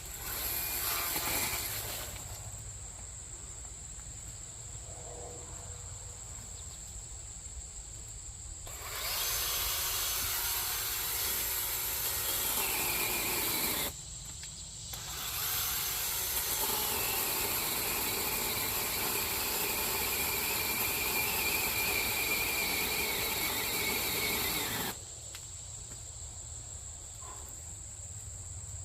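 Chainsaw cutting through brush and limbs: a short burst at the start, then two long cuts of about five and ten seconds separated by a brief drop. A steady high insect trill runs underneath.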